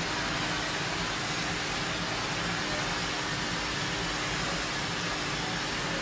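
Compressed-air spray gun hissing steadily while spraying glaze onto a ceramic squat toilet pan, with a faint steady hum underneath.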